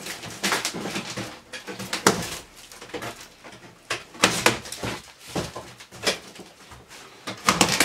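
Large cardboard box being pulled open by hand: its flaps and packing paper scrape and rustle in a string of irregular crackles.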